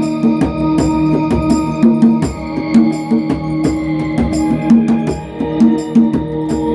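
A djembe played with bare hands in a steady pattern of slaps and bass tones, over sustained chords from a Kurzweil keyboard, playing an ambient chord progression.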